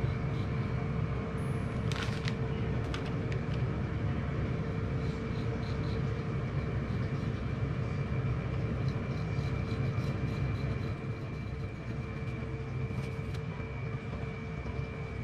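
A steady mechanical hum with a faint high whine running under it, and a few light clicks about two and three seconds in.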